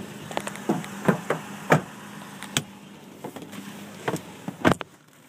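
A run of irregular clicks and knocks as the cab of a 2012 Toyota Tacoma double cab is handled, its rear seat and doors, with louder knocks near the middle and near the end. A faint low steady hum runs underneath.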